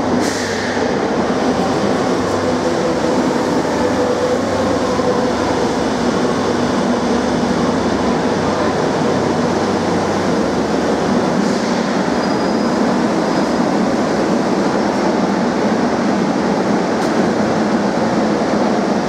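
Madrid Metro Serie 2000B train entering the underground station and braking along the platform to a stop. A steady loud rumble of wheels and running gear, with a faint high squeal about twelve seconds in.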